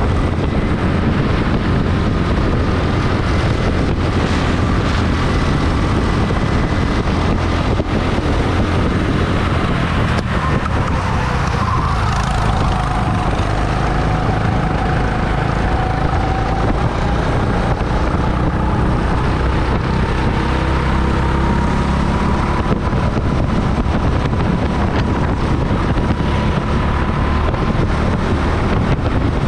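Rental kart running at racing speed, its motor's whine slowly falling and rising in pitch with speed through the corners, over a heavy low rumble with wind on the microphone.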